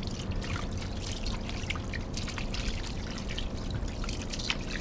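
Water running and splashing irregularly over a freshly cut fish as it is rinsed clean by hand.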